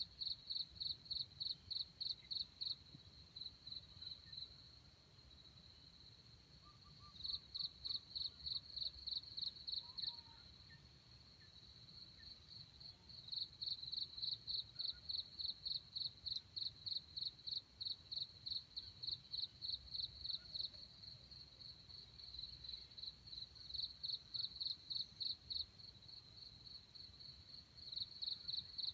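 An insect calling in trains of rapid high-pitched pulses, about four or five a second. The trains last a few seconds each, with short pauses between them, over a fainter steady high drone of more insects.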